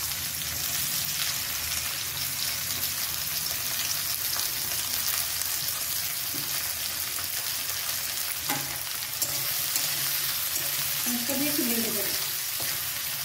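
Sliced onions sizzling steadily in hot mustard oil in a kadai (Indian wok). A metal spatula stirs them, with a few short scrapes against the pan.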